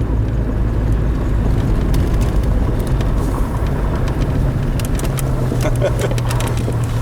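A 2002 Chevrolet TrailBlazer's engine and road noise while driving, a steady low drone. The engine is running smoothly now that its misfire on cylinder 3 is fixed.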